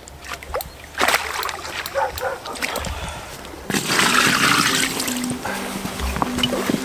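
Water splashing at the lake's edge as a carp is lifted in a landing net, then a louder steady splashing from about four seconds in as water is poured from a bucket onto a carp unhooking mat to wet it, easing off after a second or so.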